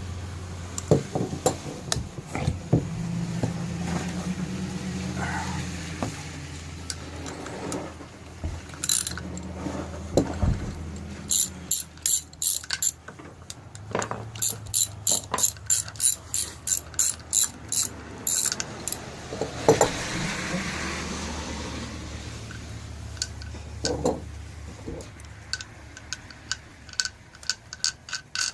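Socket ratchet wrench clicking in runs of quick clicks, with scattered knocks of tools against metal.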